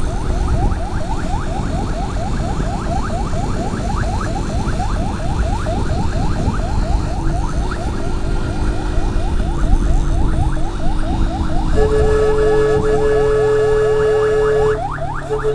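Electronic siren wailing in a fast yelp, rising sweeps repeating about six times a second, over the rumble of riding wind and engine. Near the end a steady horn blast sounds for about three seconds, followed by short horn beeps.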